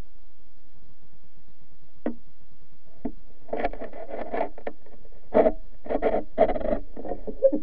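Muffled knocks and rubbing picked up through an underwater camera's housing: two single clicks, then a run of irregular dull bumps and scrapes in the second half.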